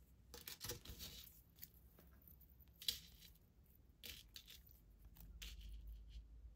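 Faint rustling and small clicks of a fine metal chain being handled and untangled between the fingers over a cloth, with one sharper click about three seconds in.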